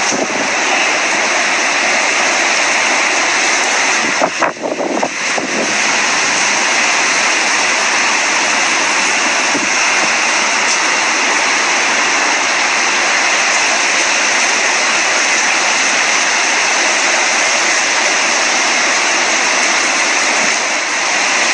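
Heavy rain falling in a steady hiss, with a brief rustle about four and a half seconds in.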